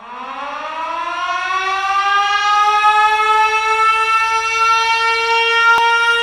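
A siren winding up: one pitched tone rising quickly from low and levelling off into a steady wail, growing louder as it rises. A single faint click near the end.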